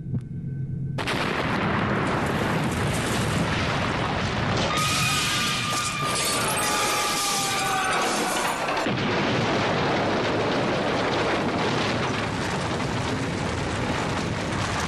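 Huge truck-bomb explosion as staged for a reconstruction: a sudden blast about a second in, then a long continuous rumble of the blast and debris. Midway a brighter stretch carries a few high steady tones, some sliding slightly down.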